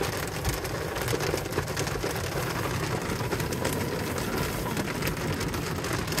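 Rain falling on the car's roof and windshield, heard from inside the cabin: a steady hiss thick with many sharp drop hits.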